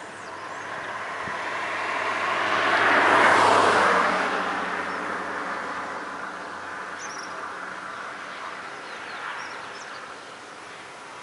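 A motor vehicle passing by on the road, its engine and tyre noise swelling to loudest about three seconds in and then slowly fading away. A few short bird chirps come near the end.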